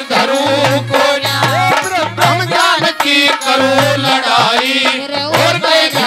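Live Haryanvi ragni folk music: a man singing a winding melody into a microphone over accompaniment, with a steady beat of deep drum strokes a few times a second.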